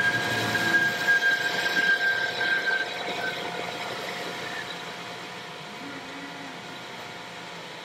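Metal lathe running with its cutting tool turning down a threaded rod: a steady high whine from the cut for about the first three seconds, then fading, leaving the lathe's steady running noise.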